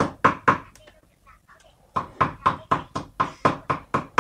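Knife chopping ponyfish flesh into a mince: rapid, even chops about four a second, breaking off for about a second near the start, then starting again.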